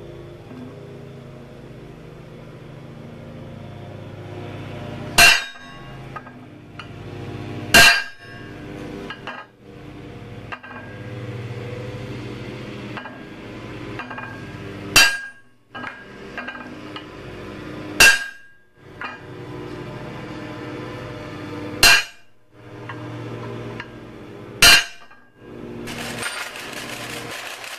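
Hammer striking a center punch on a steel plate, six sharp metallic blows a few seconds apart, punching hole positions on a crank eccentric disc for drilling. Near the end a drill press starts running.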